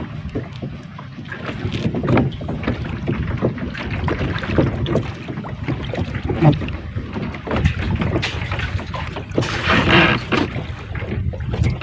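Noise aboard a small fishing boat at sea: water splashing and knocking against the hull in irregular bursts, with a louder rush of noise about ten seconds in.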